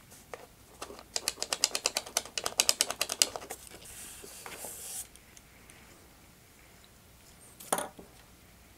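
Rapid mechanical clicking, about nine clicks a second for roughly two seconds, from a small hand tool being worked at the wing of a foam model biplane, followed by a brief scraping hiss and a single knock near the end.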